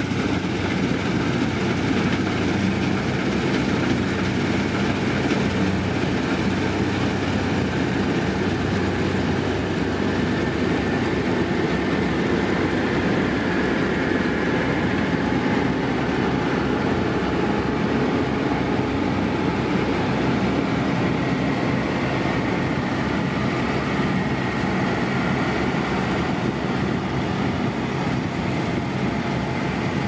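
Massey Ferguson combine harvester running while cutting grain, a steady machine drone that holds without a break.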